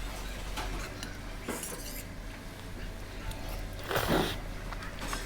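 Eating at a table: cutlery clinking and scraping against a dish in short clicks, with a louder half-second noisy rush about four seconds in, over a steady low hum.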